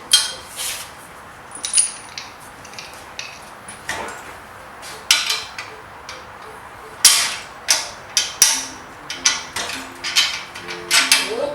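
Irregular clicks and clinks of small screws and metal and plastic parts being handled and fitted while a handle is screwed onto a pressure washer frame, some sharp, with pauses between.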